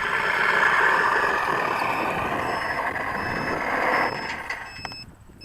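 The onboard sound system of a Carbon-Z T-28 RC model plays a simulated warbird engine run through its speaker. It starts suddenly and fades out about four seconds in. After it, the battery's low-voltage beeper gives short high beeps, signalling that the battery is nearly spent.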